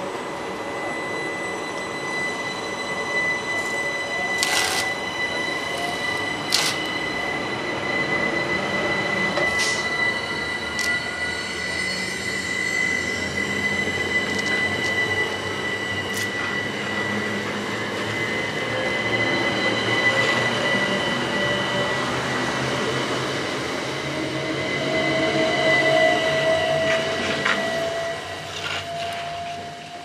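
Southeastern Class 375 Electrostar electric train pulling out and accelerating away, with a steady high whine and then a whine rising in pitch near the end as the sound fades. Several sharp cracks in the first half come from the pickup shoes arcing on the snow- and ice-covered third rail.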